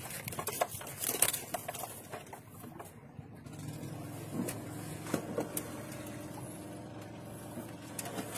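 A boat's engine running steadily, with a few sharp knocks and clicks over it in the first couple of seconds.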